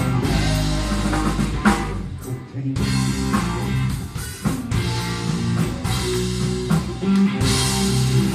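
Live rock band playing: electric guitar, bass guitar and drum kit, with a brief drop in loudness a little after two seconds in.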